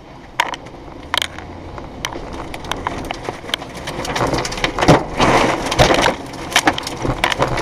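Tornado wind and rain battering a car, heard from inside the cabin: many sharp knocks of rain and flying debris striking the windshield and body, and a rushing wind noise that builds from about four seconds in and is loudest about five seconds in.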